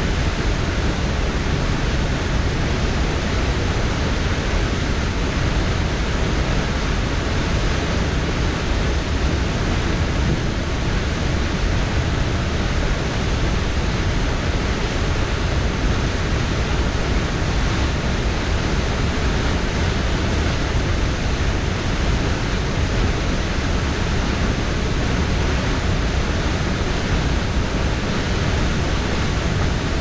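Huka Falls on the Waikato River: a great volume of water rushing out of a narrow rock ravine and over the falls into the pool below, a loud, steady rushing with no let-up.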